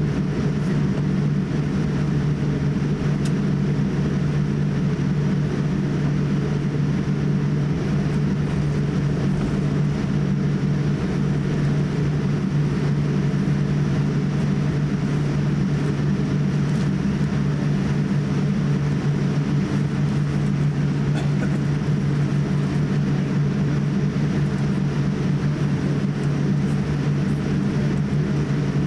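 Steady cabin noise inside a Boeing 787-8 taxiing, its Rolls-Royce Trent 1000 engines at low taxi power: an even low hum with a soft hiss over it.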